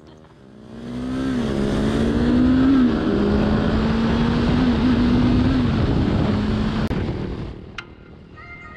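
Sport motorcycle engine running loudly under way, its pitch rising and dipping a few times, with wind rush, heard from the rider's own camera. The sound swells in about half a second in and fades out near the end.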